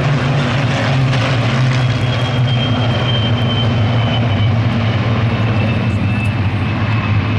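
Spitfires and Hurricanes flying past in a formation, their V12 piston engines making a loud, steady drone with a faint high tone slowly falling in pitch.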